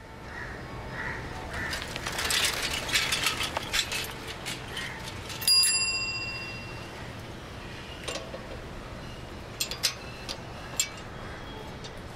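Foley of a bicycle ride: a bicycle bell rings once about five and a half seconds in and fades over about a second. Scattered clicks and rattles of the bicycle sound before and after the ring, over a low steady hum.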